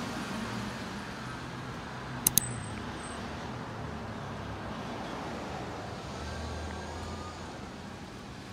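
Street ambience of distant road traffic: a steady low hum of cars, with two quick clicks about two seconds in.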